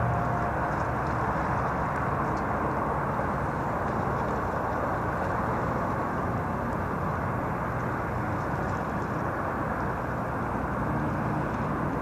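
Steady outdoor background rumble and hiss, even throughout with no distinct events, of the kind distant road traffic and wind make.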